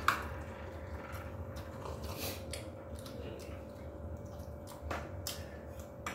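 Table eating sounds: a metal serving spoon clinking and scraping in a frying pan and on plates, with scattered small clicks of cutlery and chewing. A sharp clink right at the start is the loudest sound, and a faint steady hum runs underneath.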